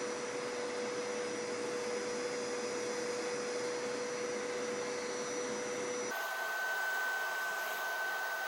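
Hoover PowerScrub Deluxe carpet cleaner running, a steady vacuum-motor noise with a constant whine. About six seconds in the sound changes abruptly to a thinner noise with a higher-pitched whine.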